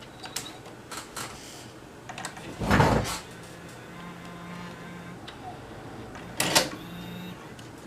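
JVC GR-SXM915U camcorder's cassette mechanism clicking and clunking, with short stretches of a faint steady motor whirr, as the eject button is pressed. The cassette does not come out: the eject mechanism is stuck, which the owner puts down to a broken mechanism.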